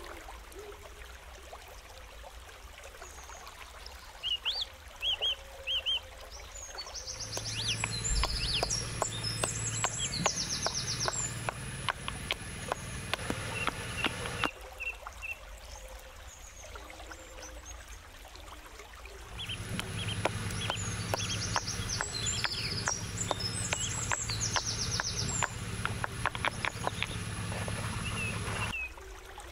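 Small birds chirping and calling in short high trills. Two long stretches of rapid, even clicks or knocks run with them about a quarter of the way in and again past the middle.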